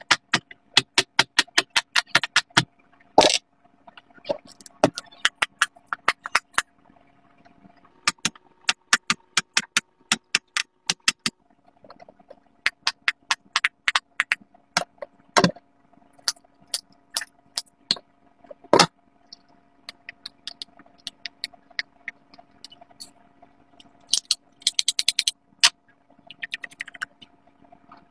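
Silicone pop-it fidget toy bubbles being pressed one after another, a run of sharp little pops several a second, coming in bursts with short pauses between.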